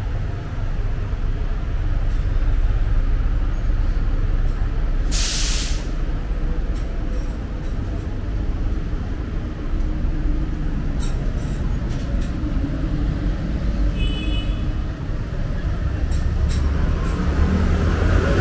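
City street traffic with a steady low rumble of engines. About five seconds in, a bus's air brakes release with a short, loud hiss.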